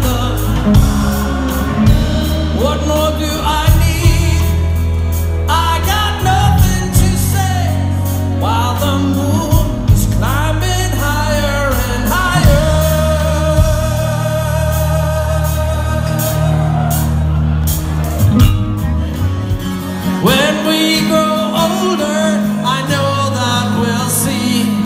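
Live rock band playing a song: a singer over guitars, electric bass and drums.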